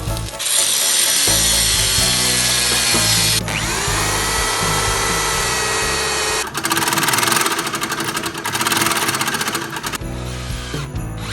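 Live Foley sound effect: a loud whirring, grinding noise like a power drill, with a whine that rises and levels off a few seconds in and rapid rattling pulses after that, over background music.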